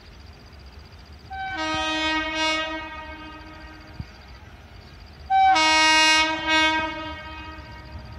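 Air horn of an approaching WAG-7 electric locomotive sounding two blasts about four seconds apart, each about a second and a half long, the second louder.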